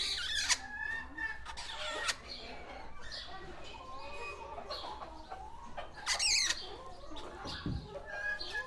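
A mixed flock of parakeets and turkeys calling together: constant parakeet chirping and chatter, with shrill screeches at the start and about six seconds in, over lower fowl calls.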